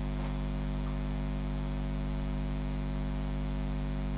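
Steady electrical mains hum with a faint hiss of static, unchanging throughout.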